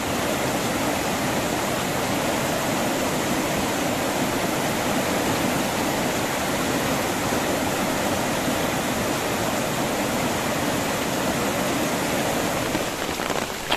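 Fast-flowing river rushing, a steady, even flow of water without a break.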